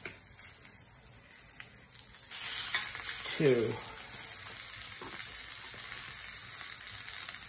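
Raw chicken thighs sizzling in a smoking-hot cast iron pan, a steady high hiss. The sizzle jumps louder about two seconds in as a second thigh goes into the pan.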